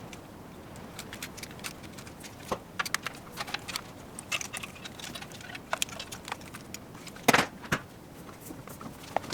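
Scattered light clicks, rattles and knocks of equipment and cables being handled, with one louder knock about seven seconds in.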